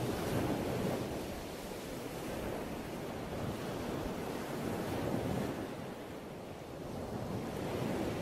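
Ocean surf washing onto a beach, the rush of the waves swelling and easing every few seconds, with no music over it.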